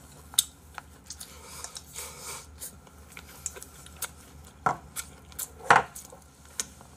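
Chopsticks clicking against bowls and a serving tray: scattered sharp clinks, a few closely spaced ones about four to six seconds in, the loudest near the end.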